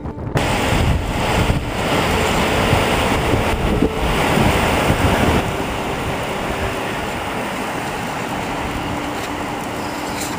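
Wind rushing over the microphone of a camera carried on a moving road bicycle, a steady noise that starts abruptly just after the start and eases a little about halfway through.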